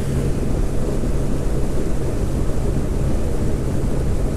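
Small boat outboard motor running steadily at speed with a constant low hum, wind buffeting the microphone and water rushing past the hull.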